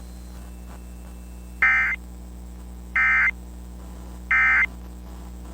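Emergency Alert System end-of-message (EOM) data bursts: three short, warbling digital tone bursts, each about a third of a second long and about 1.3 seconds apart. They signal the end of the tornado warning broadcast.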